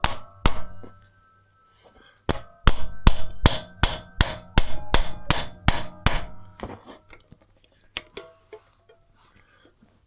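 Hammer striking a hand impact screwdriver to break loose a stuck engine-cover screw: two blows, then about a dozen in quick succession, about three a second, each with a metallic ring, then a few lighter taps near the end.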